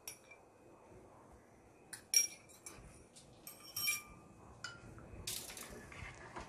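Several light clinks of metal utensils against dishes and glass, a few separate knocks with a short ring. Near the end a ladle goes into the pot and stirs the chopped carrot and pineapple in their syrup, a rougher scraping and sloshing.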